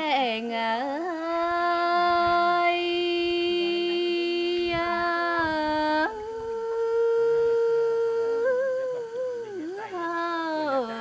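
A woman singing lượn cọi, a Tày folk song, unaccompanied, in long drawn-out notes: a low note held for about four seconds, then a step up to a higher note held about two more, with wavering ornaments before and after.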